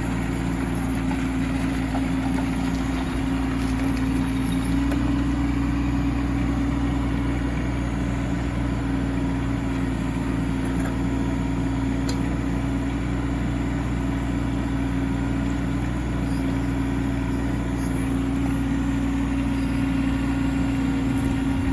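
Mini excavator's engine running steadily with a constant hum, its pitch stepping up slightly about five seconds in.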